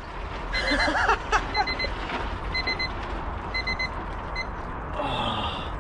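Digital timer alarm beeping in quick groups of three or four high beeps, about one group a second: the timed session is up. The beeping stops about four and a half seconds in, when the timer is switched off.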